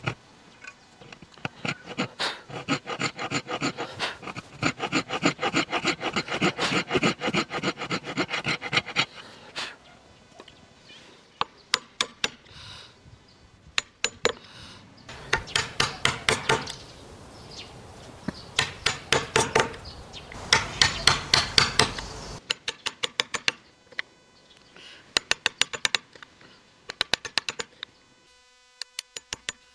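Hand sawing a hardwood block clamped in a bench vise with a thin-bladed wooden frame saw: quick, rhythmic rasping strokes in two long runs. From about two-thirds of the way in, these give way to separate sharp taps as a chisel is worked into the block.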